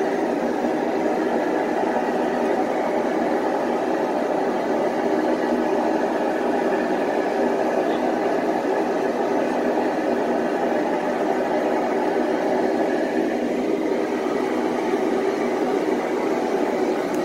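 A running machine's steady whirring rush, even and unbroken.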